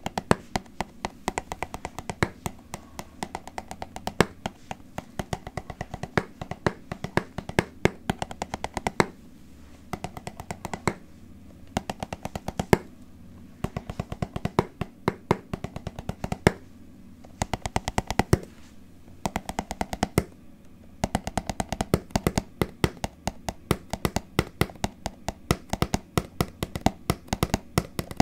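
ASMR tapping close to the microphone: quick runs of sharp taps, several a second, broken by a few short pauses.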